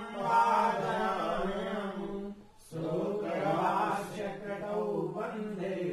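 Mantras chanted in worship, held on a near-level pitch in long phrases, with a short break for breath about two and a half seconds in.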